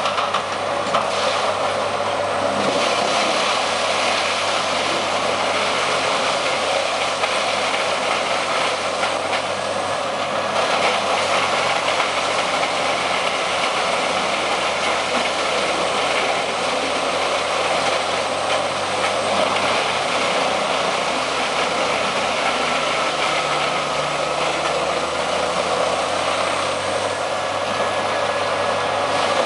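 Morbark 30RXL wood chipper running at full power and chipping logs fed in by its loader crane, a loud, steady machine noise that does not let up.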